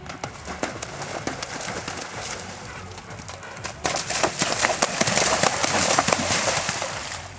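Horse's hoofbeats at a canter on grass. About four seconds in it gallops into a shallow water jump, and the splashing of its hooves becomes much louder, easing near the end.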